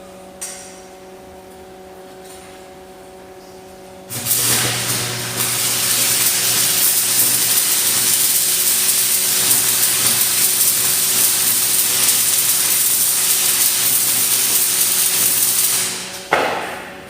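Stick (arc) welder burning a 6011 electrode: the arc strikes about four seconds in, breaks briefly, catches again, then crackles and hisses steadily for about ten seconds before it is broken off near the end, followed by a short flare.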